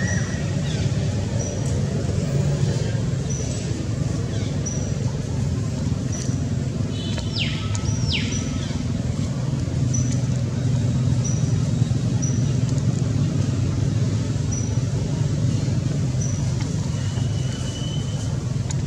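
Outdoor background: a steady low rumble like distant traffic, with a short high chirp repeating about once a second and two quick falling whistles about seven to eight seconds in.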